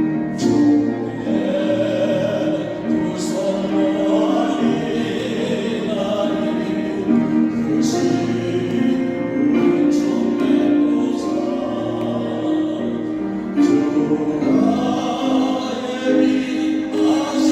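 A group of voices singing a Christian praise song together, held notes moving from phrase to phrase, with a few sharp strokes through the singing.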